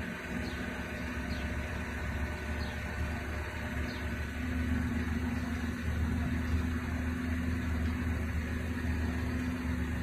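Boom truck crane's engine running steadily with a low hum while the crane lowers a palletised load, a little louder from about halfway through.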